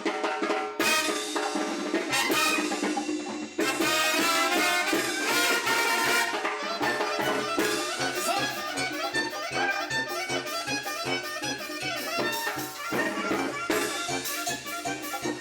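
Mexican banda music: trumpets, trombones and clarinets playing over drums, with sharp brass hits early on that settle into a steady dance beat.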